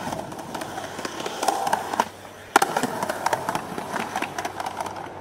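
Skateboard wheels rolling on concrete, with short clacks of the board and a sharp crack about halfway through.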